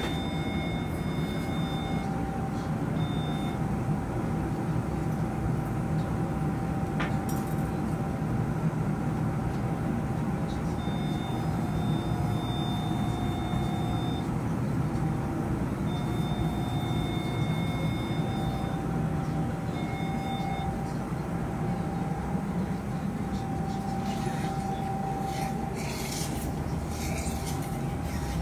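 Steady hum of operating-room equipment, with an electrosurgical (cautery) unit's activation tone switching on and off several times, each tone lasting from half a second to about three seconds. Scratchy rustling of drapes and instruments near the end.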